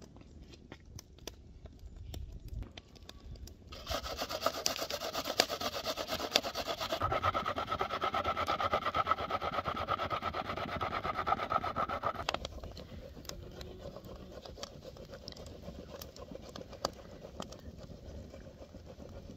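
A peeled onion being grated on a stainless-steel box grater in quick rasping strokes. It starts about four seconds in and stops abruptly about eight seconds later.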